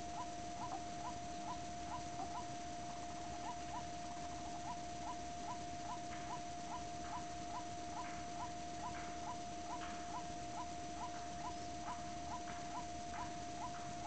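White-breasted waterhen (kareo) calling: a short rising note repeated evenly about three times a second, with louder, rougher calls joining in between about six and thirteen seconds in, over a steady tone.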